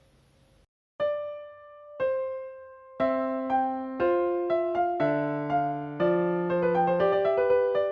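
Gentle background music on a piano or electric piano, starting about a second in with slow single notes that ring out, then picking up into quicker notes and chords.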